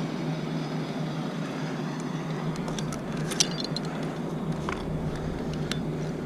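An engine running steadily at an even pitch. A few light clicks and ticks come about halfway through.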